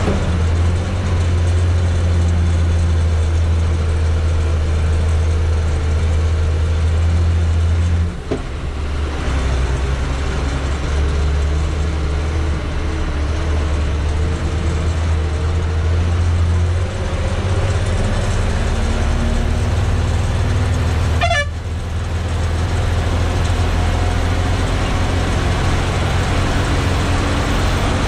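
Diesel engine of a heavy Indian lorry labouring uphill, heard from inside the cab as a loud steady drone; the engine note dips and shifts about 8 seconds in and again around 17 seconds. A brief horn toot sounds about three quarters of the way through.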